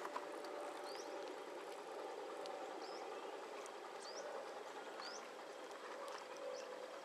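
Faint outdoor ambience: a steady background hum, with a bird repeating a short rising chirp about once a second.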